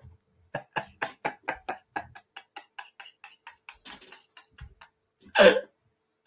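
A man laughing: a long run of quick, breathy pulses, about four or five a second, fading away, then a louder burst of laughter about five seconds in.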